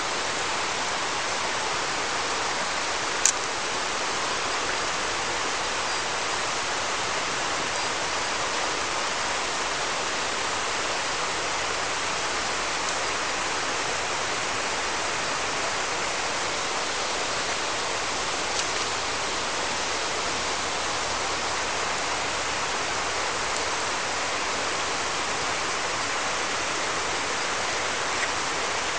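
River water running over stones and cobbles: a steady, even rush. A single sharp click about three seconds in.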